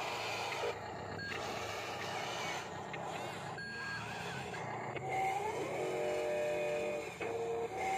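Huina radio-controlled toy wheel loader driving over soft dirt, its electric drive motors and gears whirring steadily. Short electronic beeps sound over it, with a held tone between about six and seven seconds in.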